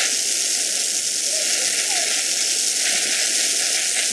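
Water from a garden hose sprayer shooting up in a jet and raining down on a trampoline: a steady hiss and patter of spray.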